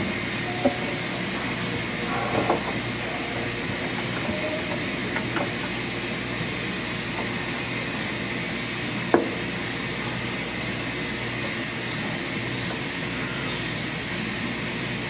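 Steady hiss and hum of air-moving machinery, with a few light clicks and knocks from hands working a new belt onto a dryer drum, the sharpest about nine seconds in.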